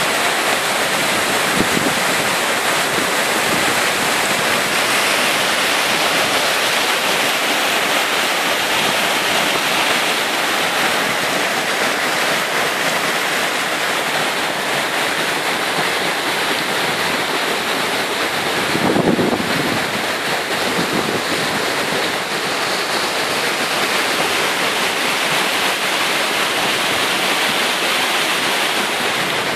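Waterfall pouring down a steep rock face close by: a steady, loud rush of falling and splashing water. About two-thirds of the way through there is a brief low rumble.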